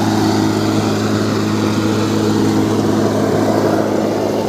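A machine running steadily with a low, even hum, like an engine or generator at constant speed on a rail welding job.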